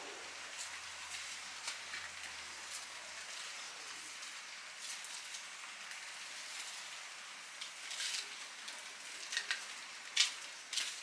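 Steady patter of rain. A few sharp clicks and slaps sound in the last few seconds.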